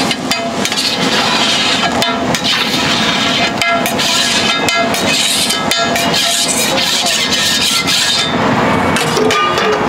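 Metal spatula scraping and clacking across a large flat iron griddle (tawa) in quick repeated strokes, over a hiss from the hot, steaming surface.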